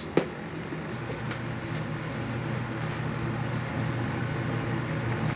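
A steady low hum with hiss, like a fan or machine running, with a single short click just after the start.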